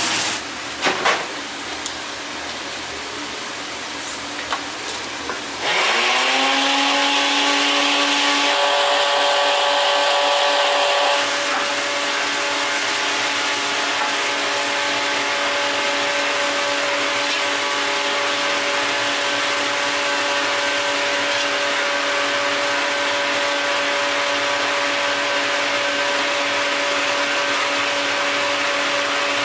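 A pan simmering with an even hiss and a couple of clicks. About six seconds in, an electric motor spins up with a short rising whine and then runs at a steady pitch, dropping a little in level a few seconds later.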